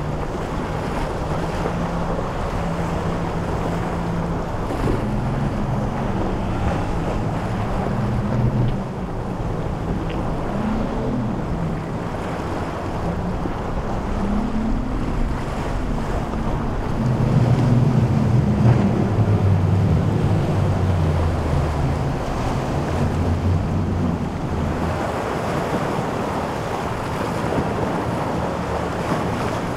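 Powerboat engines running through choppy inlet waves, their pitch rising and falling as the boats throttle up and down, several overlapping, loudest about two-thirds of the way in. Constant wind buffeting the microphone and the wash of surf run underneath.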